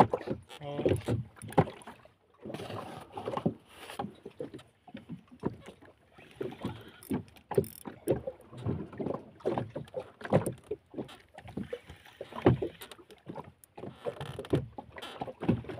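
Irregular knocks, scrapes and handling noise from a spinning rod and reel being worked against a hooked big tuna in a small boat, with no steady rhythm.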